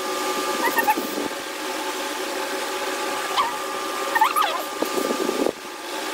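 A steady mechanical hum made of several fixed tones, with short whining calls that rise and fall in pitch about a second in and twice more near the middle.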